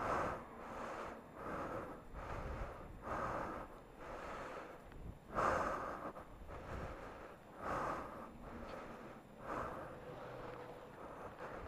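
A man breathing hard, a loud breath about every second or two, the strongest about halfway through: the exertion of pushing a motorcycle that has run out of fuel.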